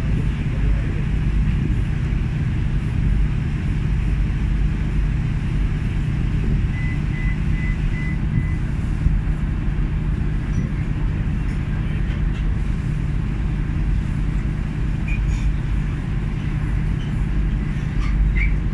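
Steady low rumble of marine engines with wind on the microphone, and a few faint short beeps about seven seconds in.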